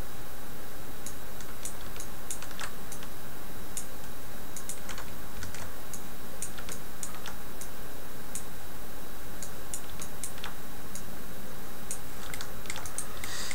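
Scattered, irregular clicks of a computer mouse and keyboard being worked, over a steady background hiss.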